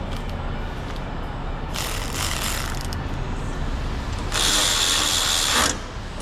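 A power tool runs in two short bursts over a steady low shop hum: a fainter one about two seconds in, then a louder one lasting about a second and a half from about four and a half seconds in, with a steady high whine.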